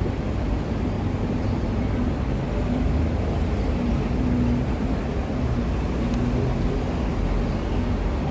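Steady low rumble of nearby motor traffic, with a faint wavering engine hum.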